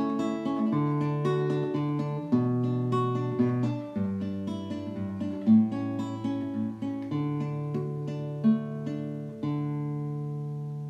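Background music: acoustic guitar picking a melody over bass notes, ending on a chord about nine seconds in that rings out and slowly fades.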